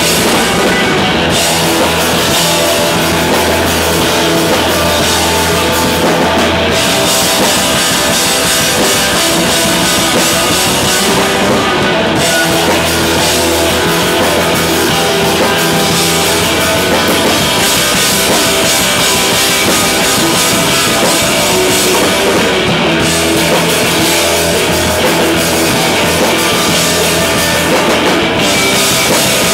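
A rock band playing loudly live, with electric guitars, bass guitar and a drum kit.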